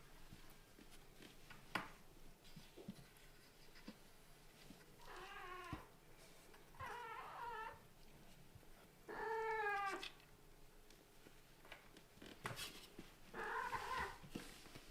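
Kitten meowing: four drawn-out calls of about a second each, with a sharp tap about two seconds in.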